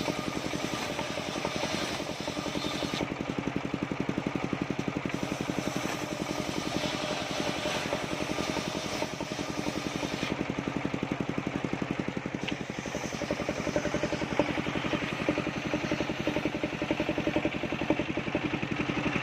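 Engine of a mobile circular sawmill running steadily, with a rapid, even pulsing beat.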